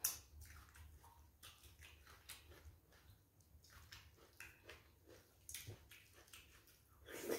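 Faint wet chewing and lip-smacking of a person eating stewed goat head meat by hand, in scattered soft clicks, with a louder smack at the very start and another near the end.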